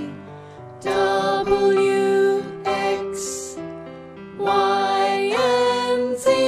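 Background children's song music: phrases of held melodic notes with a short hiss about three seconds in.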